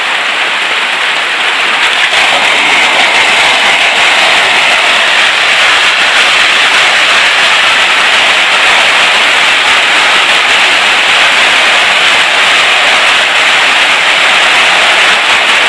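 Heavy rain pouring down steadily, a dense, even hiss of downpour that grows a little louder about two seconds in.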